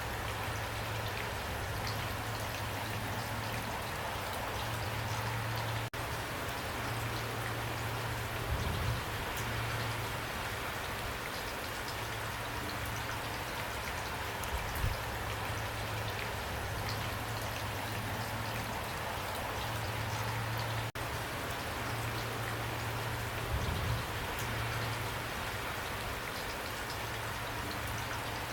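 Steady heavy rain pouring down, with scattered individual drops ticking on a surface and a few low thuds now and then. The sound drops out for an instant twice.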